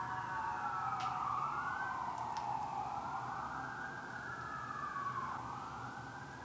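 Emergency-vehicle siren wailing in slow sweeps that rise and fall in pitch, growing a little fainter near the end; a few faint clicks about one and two seconds in.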